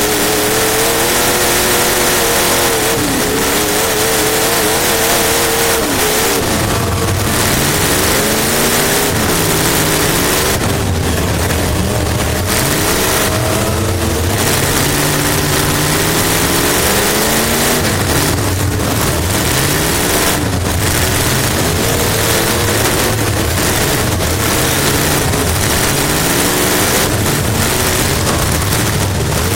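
Race car engine heard from inside the car while racing: the revs climb and drop every couple of seconds as it accelerates and lifts through the turns.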